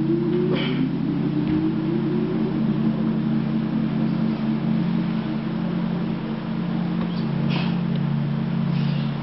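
Low, steady droning soundtrack for a contemporary dance piece: several held low tones, with a higher tone gliding slowly upward in the first couple of seconds. A couple of faint knocks come about half a second in and again near the end.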